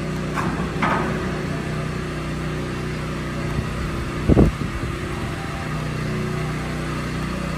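Hydraulic grain-bin jacks raising the steel bin shell, their hydraulic power unit running with a steady low hum. A short thump comes about four seconds in.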